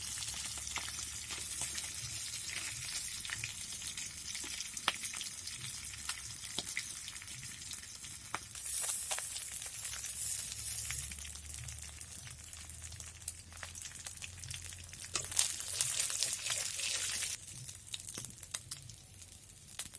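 Hilsa pieces frying in hot mustard oil in a kadai, a steady sizzle with sharp crackles and occasional clicks as the fish are turned and lifted out. The sizzle swells twice, through the middle and again later, then dies down near the end.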